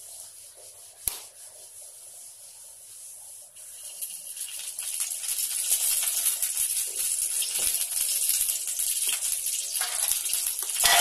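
Whole tomatoes frying in hot oil in a pan over a wood fire: a faint sizzle with one sharp click about a second in, swelling from about four seconds into a louder, steady hiss.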